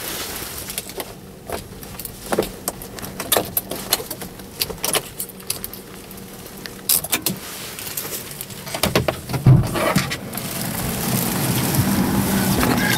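Keys on the ignition key ring jangling and clicking against the steering column, in scattered light clicks, with a heavier knock about two-thirds through. A steady low hum then grows louder toward the end.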